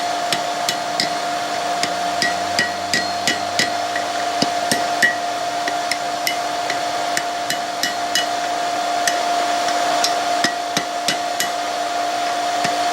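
Hand hammer striking hot high-carbon steel on an anvil, a steady run of blows about two to three a second, many with a short metallic ring: forging the bend into a rat-tail flint striker. A steady hum runs underneath.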